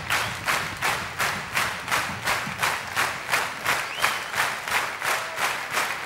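A large theatre audience clapping in unison, a steady beat of about three claps a second.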